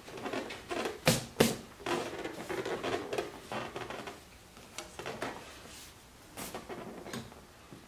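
Leather motorcycle seat being pressed down and pushed into place on a Harley-Davidson Road Glide: rubbing and handling noise, with two sharp knocks about a second in as it seats on its mount.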